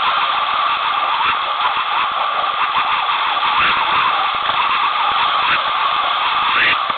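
Whitewater rapids in a creek, the water rushing and splashing over rocks in a loud, steady wash of noise, with a few brief sharper splashes.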